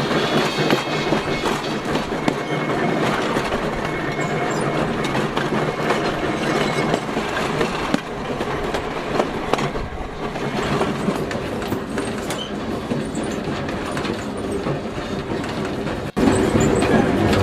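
Pacific Electric electric railcar 418 running on track, its wheels clicking over rail joints with some wheel squeal. A cut about sixteen seconds in brings a louder stretch.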